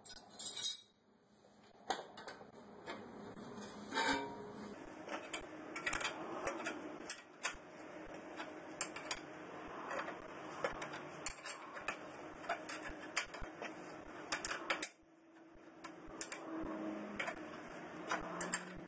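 Irregular light metallic clicks and clinks of hands and tools on the steering parts as the new tie rod end is worked into the steering knuckle, with a quieter stretch near the end.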